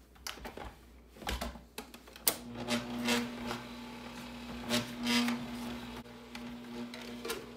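Bosch Compact stand mixer: a few clicks and knocks as its head is lowered into the bowl, then about two seconds in the motor starts and runs with a steady hum at low speed. The beater scrapes and rubs through flour, powdered sugar and cold butter being worked into cookie dough.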